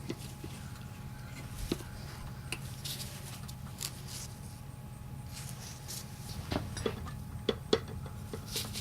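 Light clicks and clinks of turbo pedestal parts and hand tools being handled during disassembly, several in quick succession near the end, over a steady low hum.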